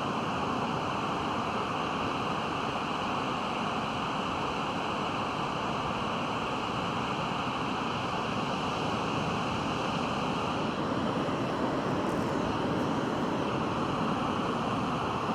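Pacific Ocean surf: a steady, continuous wash of waves breaking on the beach, with no single crash standing out.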